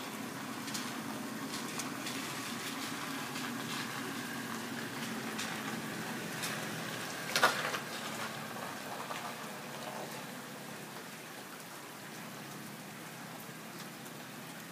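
Rain falling steadily, with a single sharp knock about seven and a half seconds in.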